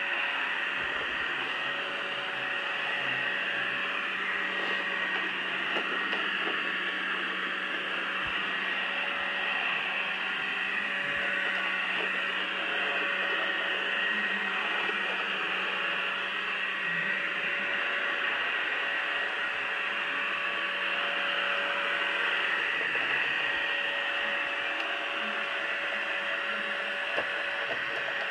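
PureClean robot vacuum running across carpet: a steady whir of its motor and suction fan with a constant hum, holding the same pitch throughout.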